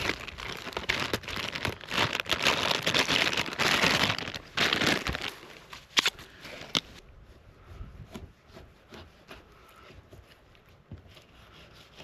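Crinkling and crackling of something dry being crumpled or handled, dense for about the first five seconds, then thinning to a few louder snaps and scattered faint clicks.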